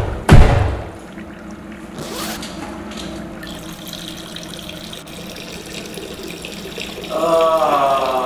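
Two loud bangs right at the start, then water running steadily in a small tiled restroom. Near the end a person's voice comes in, wavering in pitch.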